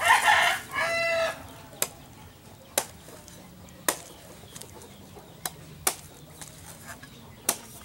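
Loud chicken calls in the first second or so. Then a knife hacks at the husk of a green coconut on a wooden chopping block: about half a dozen sharp chops at uneven gaps of roughly one second.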